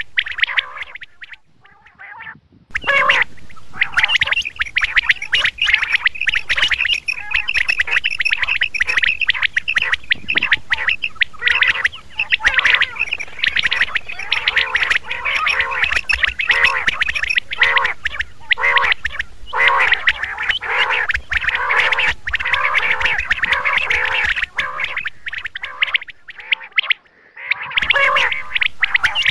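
Common quail calling: many overlapping, rapidly repeated chirping calls, with two brief pauses, one about a second in and one shortly before the end.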